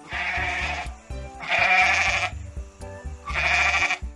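A goat bleating three times, each bleat rough and under a second long, over background music.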